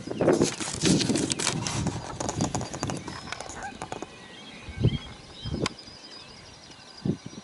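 Rustling and clicking from the camera being handled and moved for the first few seconds. Then birds chirp over a faint high trill, broken by a few soft thumps.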